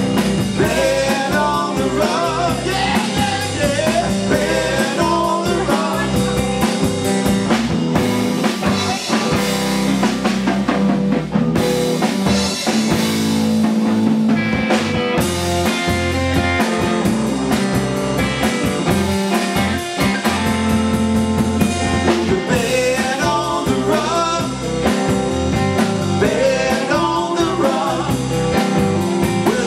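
Live blues-rock band playing: electric guitar, electric bass and a drum kit, with a man singing at times.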